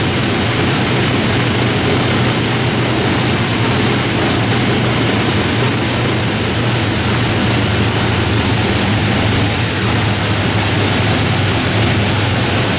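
Radial piston aircraft engine running steadily on a ground test stand, a loud even drone with a low hum under a rush of exhaust and propeller noise.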